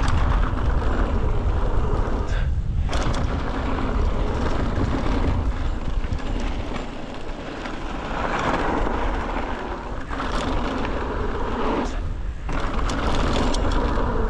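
Wind buffeting a chest-mounted action camera's microphone while a mountain bike rolls fast down a dry dirt trail. Tyre noise on the dirt comes through with scattered clicks and rattles from the bike over bumps. The noise eases briefly twice, once early on and once near the end.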